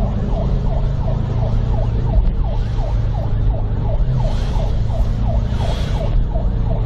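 Police siren in a fast yelp, sweeping down and up about three to four times a second, heard from inside a moving car over steady engine and road rumble.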